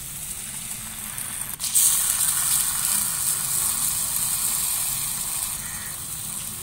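Jalebi batter spirals sizzling as they deep-fry in hot oil in a karahi, a steady hiss that grows louder about two seconds in.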